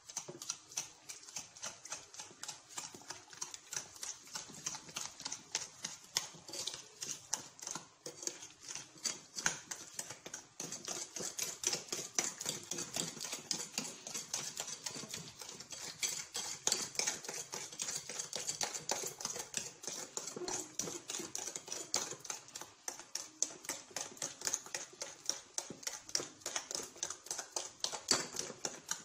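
Metal spoon beating raw eggs in a ceramic bowl, clinking against the bowl in a quick, steady rhythm of several taps a second.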